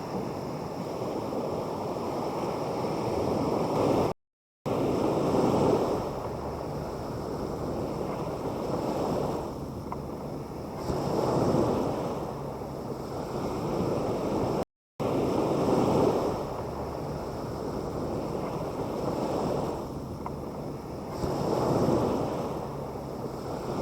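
Sea waves breaking and washing up on the beach, the surf swelling and easing back about every five to six seconds. The sound drops out to silence briefly twice, about four seconds and fifteen seconds in.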